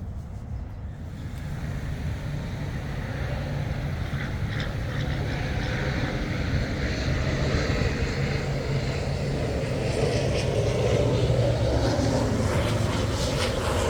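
An engine running with a steady low drone that grows gradually louder, as of a motor vehicle drawing nearer.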